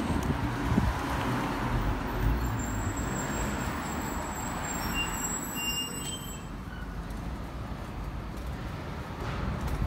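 City street traffic noise: a steady low rumble of motor vehicles. A thin, high-pitched squeal or whistle runs over it from about two to six seconds in.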